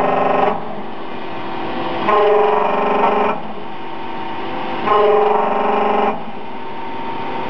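K32L slant-bed CNC lathe running and taking repeated cuts on a workpiece in its chuck. A buzzing tone comes with each cut for about a second, three times about three seconds apart, over the machine's steady running noise.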